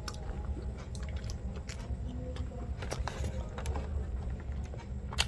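Close chewing of a mouthful of soft sweet bread, with many small wet mouth clicks over a steady low rumble, and one sharper click just before the end.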